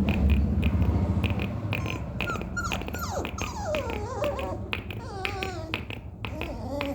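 Beagle puppy whining and yelping in wavering, rising-and-falling calls from about two seconds in, over a run of repeated sharp clicks.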